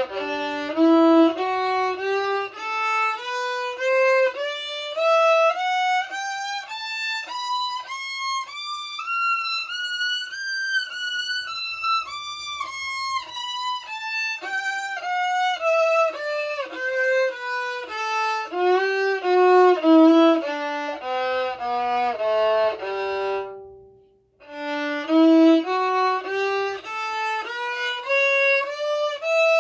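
Solo violin playing scales, bowed note by note: a G scale rising step by step high up and coming back down, then, after a short break about three-quarters of the way through, a D scale starting its climb.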